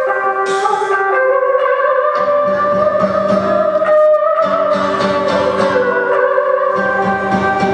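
Traditional Vietnamese instrumental music from the puppet-show ensemble: plucked string instruments play a melody whose notes bend and glide in pitch. A quick, steady beat of low drum strokes comes in about two seconds in and breaks off briefly twice.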